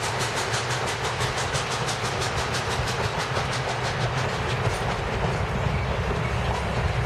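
A train of passenger coaches rolling past close by, its wheels running on the rails. A fast, even ticking, about four a second, fades away about five seconds in.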